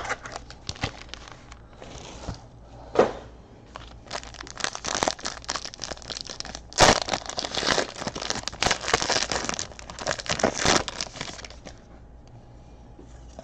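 Plastic-foil trading card pack wrapper being torn open and crinkled, a run of crackling rustles with a few sharper snaps, busiest through the middle.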